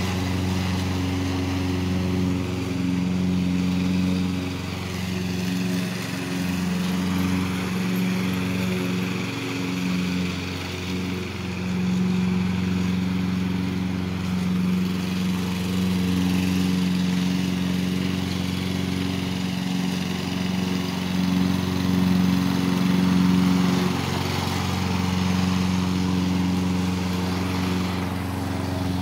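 Walk-behind lawn mower's small engine running steadily while it cuts grass.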